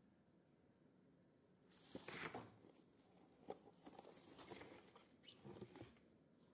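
Tangled copper wire windings from scrapped ballasts rustling as a handful is handled and dropped into a fibre drum, with a string of light clicks. It starts about two seconds in and is faint.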